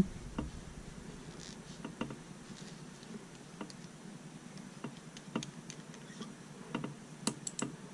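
Faint, scattered light clicks and taps as a Parker Jotter fountain pen is turned over in cotton-gloved hands, with a quick run of sharper clicks near the end.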